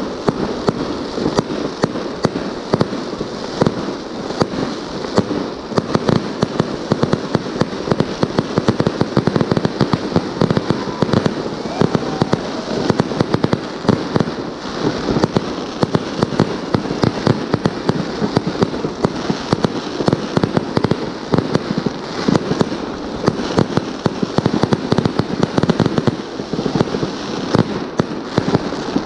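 Aerial fireworks going off in a rapid, unbroken barrage of bangs and crackling bursts.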